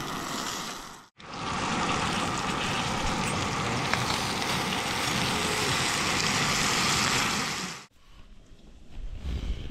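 Portable gas canister camp stove burning under a pot where a steak sits on boiling potatoes: a steady hiss with sizzling. It breaks off briefly about a second in and fades out near the end.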